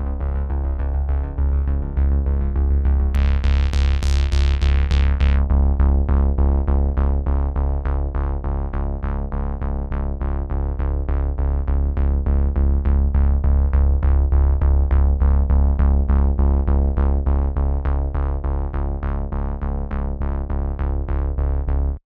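Background music: a synthesizer track with a steady pulsing beat over sustained low notes and a brief bright swell a few seconds in. It cuts off suddenly near the end.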